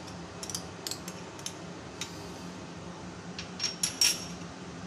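A metal fork clicking and scraping as ketchup is worked out of a plastic sachet into a glass bowl: a series of light ticks, then a few louder clinks of metal on glass with a short ring near the end.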